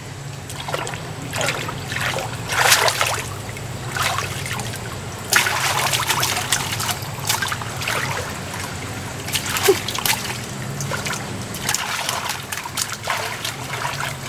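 Shallow muddy water splashing and sloshing in irregular surges as hands grope through it for fish, over a steady low hum.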